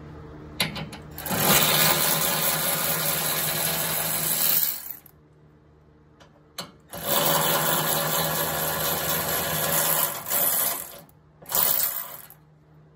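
Milwaukee cordless electric ratchet running in two long runs of a few seconds each, then a short burst near the end, spinning out the 19 mm hitch bolts that were already broken loose.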